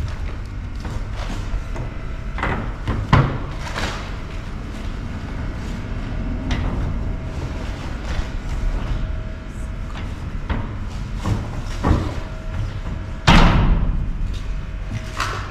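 Plastic wheeled waste bins being rummaged through: scattered knocks and rustling, with a loud bang about 13 seconds in, over a steady low hum.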